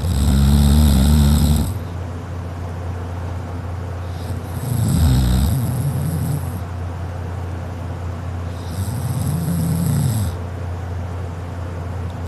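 A sleeping person snoring: three snores about four and a half seconds apart, each lasting one to two seconds, over a steady low hum.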